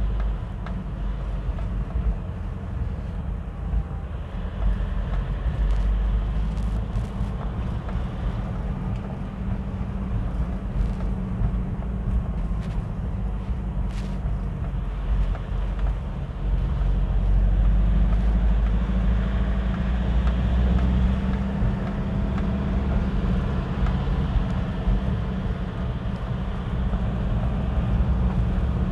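A car's engine and road noise heard from inside the moving car as it climbs a winding road: a steady low rumble that grows louder for a few seconds past the middle.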